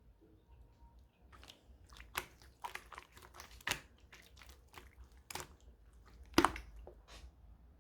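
Slime being worked by hand, giving irregular sticky clicks and small pops, with one louder pop about six and a half seconds in.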